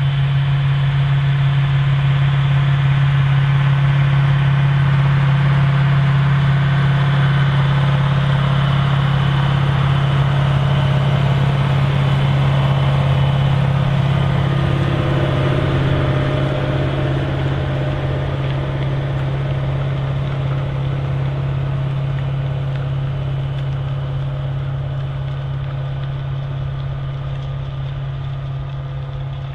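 Large articulated farm tractor's diesel engine running steadily with a strong low drone, growing gradually quieter over the second half.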